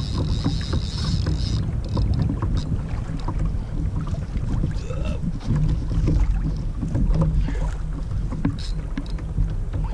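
Water splashing and rushing along a kayak's hull, with wind buffeting the microphone as a low rumble. A high buzz stops about a second and a half in.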